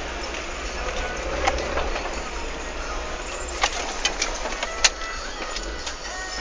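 Suzuki Vitara's engine running steadily as it drives over rough off-road ground, with sharp knocks about a second and a half in and several more between three and a half and five seconds in, the loudest near the end of that cluster.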